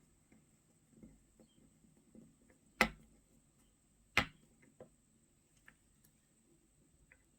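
A few sharp clicks and light taps, two louder ones about three and four seconds in: a small screwdriver and a tiny screw knocking against a phone's opened frame and metal bracket while the screw is being fitted.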